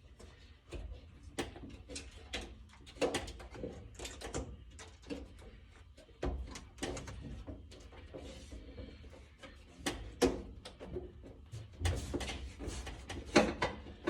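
Hands working a rubber door seal into place along a truck door: irregular clicks, taps and rubbing, with a few sharper knocks.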